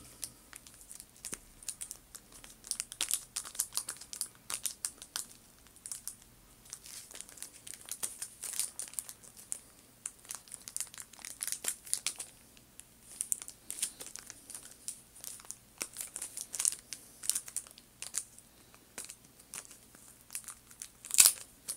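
Irregular crinkling and rustling made of many small, sharp clicks, coming in clusters that rise and fall in loudness.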